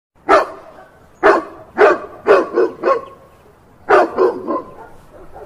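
A dog barking repeatedly: about eight short, sharp barks in an uneven run, with a pause of about a second before a last quick group.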